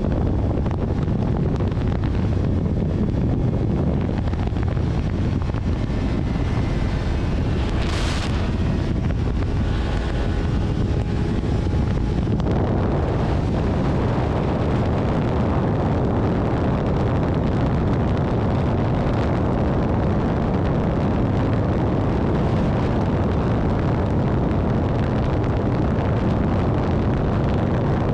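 Steady low rumble and rushing noise of a vehicle travelling on a wet road in the rain. A short hiss comes about eight seconds in, and the higher rushing grows stronger from about twelve seconds on.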